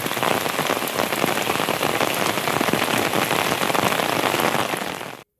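Heavy rain falling steadily, a dense hiss full of individual drop hits; it cuts off suddenly near the end.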